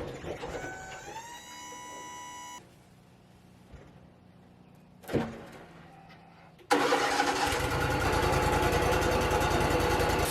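A rising whine that settles to a steady pitch and cuts off, a quiet stretch with one thump, then the Wood-Mizer LT35 sawmill's engine starting suddenly and running steadily for the last few seconds.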